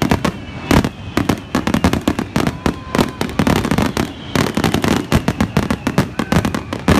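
Fireworks finale: a dense, unbroken barrage of aerial shell bursts and crackles, several bangs every second.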